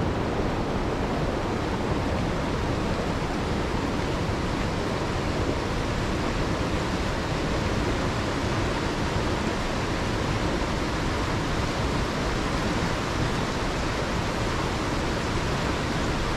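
Rushing water of a mountain river pouring over small waterfalls, a steady, even rush.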